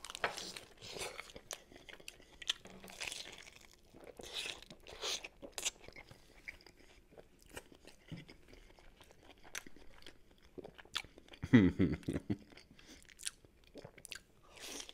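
Crunching and chewing of a lettuce wrap filled with roast chicken, celery and potato, with irregular crisp crackles from the lettuce and celery. A short hum of the eater's voice about three-quarters of the way through is the loudest sound.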